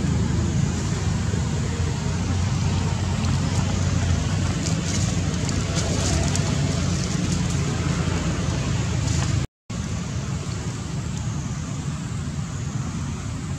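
Steady low rumble with an even hiss behind it: outdoor background noise. It cuts out briefly about two-thirds of the way through.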